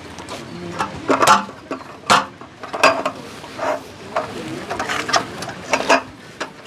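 A run of sharp clicks and knocks, about a dozen spread over several seconds, with light rattling between them: hard objects being handled and set down.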